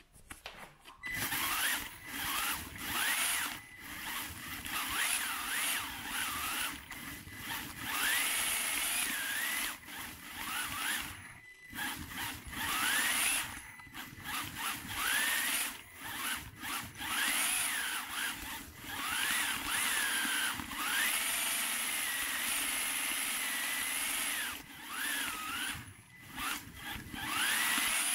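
Kyosho Mini-Z MA-020 AWD RC car's small electric motor whining as it is driven in short throttle bursts, its pitch rising and falling, with brief stops between bursts. Heard up close from the camera mounted on the car.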